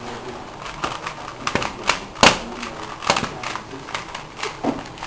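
Plastic Rubik's cube being turned fast in the hands, its layers clicking and clacking in quick, irregular runs, with one louder clack about two seconds in.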